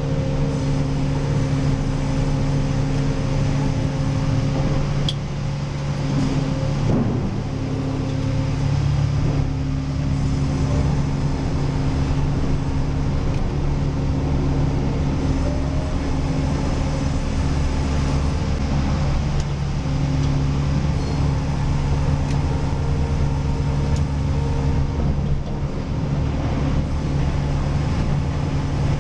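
An engine running steadily with an even hum, dipping briefly about five to seven seconds in.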